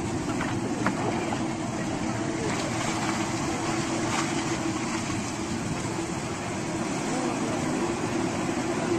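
Hydraulic excavator's diesel engine running steadily while it digs, with a steady rushing noise behind it and a few faint knocks in the first second and again about four seconds in.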